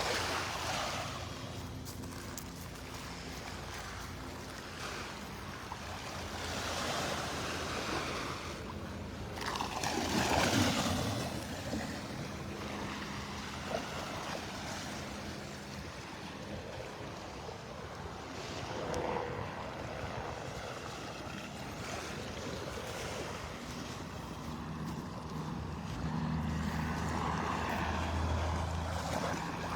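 Small Gulf waves washing onto the beach in repeated swells, with wind on the microphone. Near the end the steady low drone of a helicopter grows in the background.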